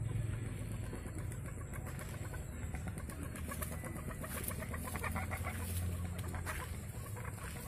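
Poultry clucking: a run of short, quickly repeated calls through the middle, over a low rumble.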